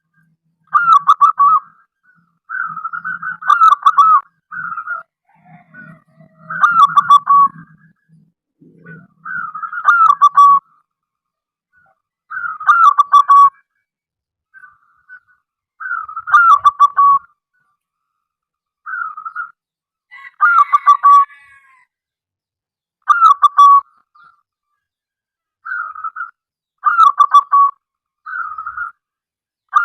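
Zebra dove (perkutut) singing: its cooing song phrase, a quick run of notes that falls in pitch at the end. The phrase repeats about every two to three seconds.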